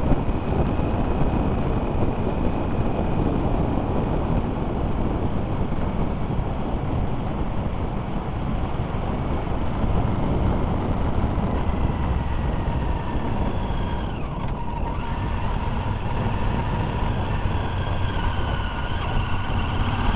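Wind buffeting the microphone of a camera riding on a moving motorbike, a steady low rush, with the bike's engine whine faintly under it, its pitch dropping and picking up again about halfway through.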